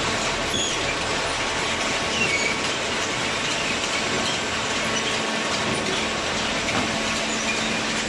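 Steady, loud mechanical din of machinery running, with faint steady hums and scattered short high squeaks.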